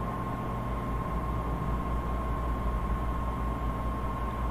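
Steady background hum and hiss, with a faint, thin, constant high tone; nothing starts, stops or changes.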